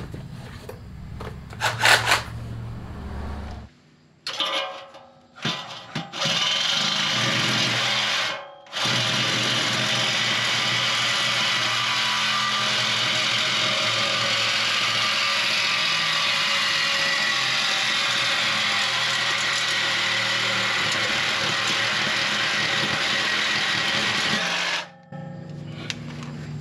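Reciprocating saw cutting through the Chrysler PT Cruiser's steel exhaust pipe ahead of the muffler, to take the muffler off and straight-pipe the car. It starts about six seconds in, stops briefly once, then runs steadily until near the end, after a few knocks from the tool being handled.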